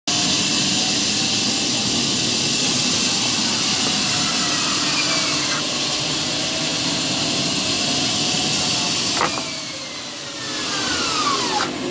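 Large bandsaw running and cutting through poplar wood: a loud, steady machine noise with several whining tones that fall in pitch. About nine seconds in there is a sharp knock, after which the noise is briefly quieter before building again.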